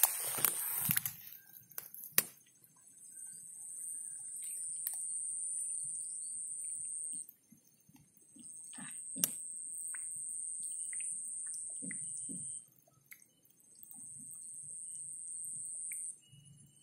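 High-pitched steady insect buzzing, in long stretches of several seconds broken by pauses of about a second. A short splashy rustle comes at the very start, and light clicks are scattered through.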